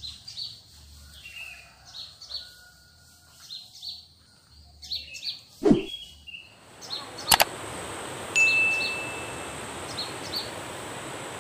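Short high chirping calls repeat over a quiet background. About six seconds in there is a loud falling sweep, and then a steady rush of flowing river water takes over, with one sharp click and a brief high tone.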